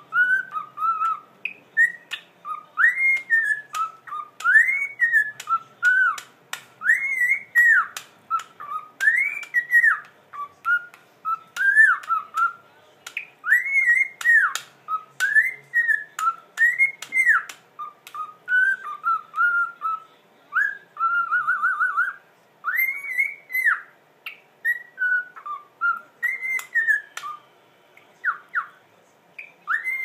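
Cockatiel whistling a long tune of clear notes that rise and fall in arches, one after another, with a quick warbling trill about two-thirds of the way through.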